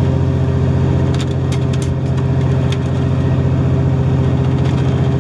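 A fishing boat's engine runs at a steady low hum, with a few light clicks of tackle being handled partway through.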